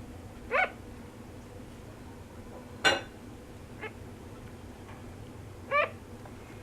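A sugar glider giving short, sharp cries in its sleep: three clear calls a couple of seconds apart, the middle one loudest, with a faint one after it. Each call rises briefly in pitch and then drops.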